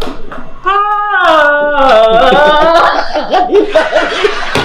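Men laughing loudly. About a second in, one voice holds a long, drawn-out note that drops in pitch at its end, and choppy laughter follows.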